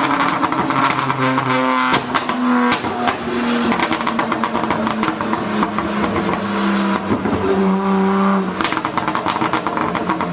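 Performance car engine revved up and down, with exhaust pops and crackles and a few sharp bangs from the exhaust, about two seconds in and again near the end.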